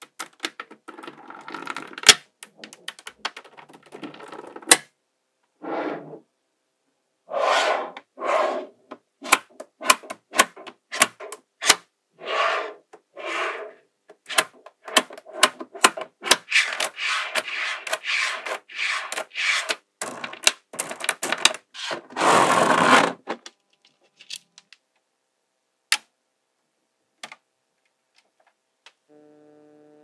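Magnetic balls clicking sharply as they snap together, mixed with short rattling, scraping runs as strings of balls are rolled and pushed into place. The clicking is dense until a little past halfway, then thins to a few single clicks near the end.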